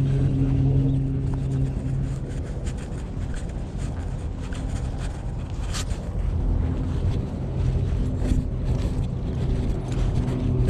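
Wind rumbling on a body-worn action camera's microphone, over a steady low hum that fades out after a second or two and comes back later. Scattered clicks of footsteps and leash handling.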